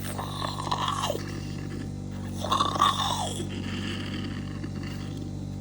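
Oral suction machine running with a steady hum while its suction tip draws saliva from a person's mouth: two wet, gurgling slurps of about a second each, one at the start and one about two and a half seconds in.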